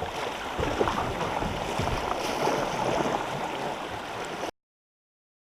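Creek water splashing and rushing around the kayak, with many small knocks and splashes mixed in. The sound cuts off suddenly about four and a half seconds in.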